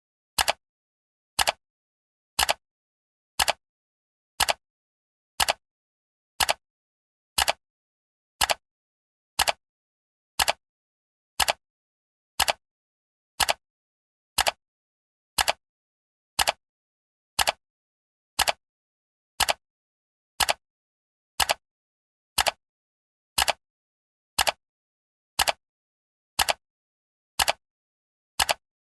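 Countdown timer's clock-tick sound effect: one short, sharp tick every second, evenly spaced, with silence between ticks.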